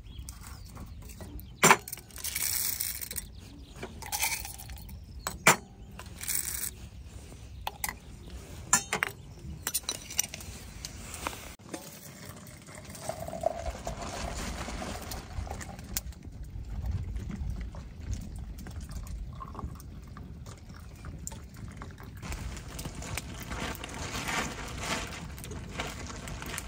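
Pieces of split wood knocked down onto a small fire in a folding steel fire pit, a few sharp knocks, then hot water poured from a camping kettle into a French press.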